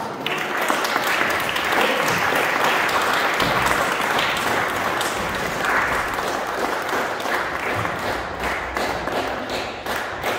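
Congregation applauding in a dense, even patter that thins towards the end into scattered individual claps.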